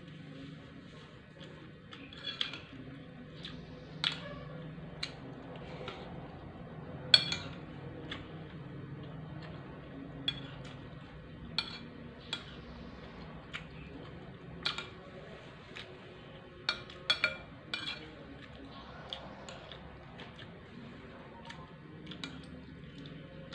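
A metal spoon clinking and scraping against a dinner plate, in irregular sharp clinks every second or two. The loudest comes about seven seconds in and a quick cluster comes near seventeen seconds. A low steady hum runs underneath.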